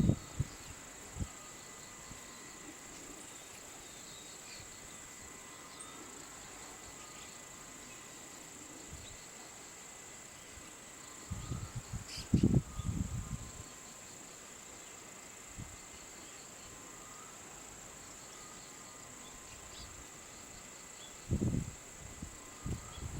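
Steady high-pitched trilling of insects, with faint chirps over it and a few low rumbling bumps around the middle and near the end.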